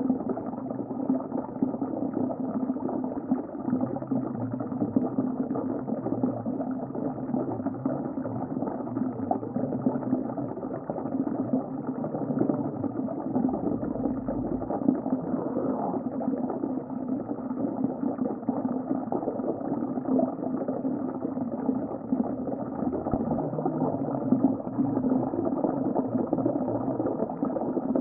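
Underwater ocean ambience: a steady, muffled wash of water noise with no high end, and low hums that shift in pitch now and then.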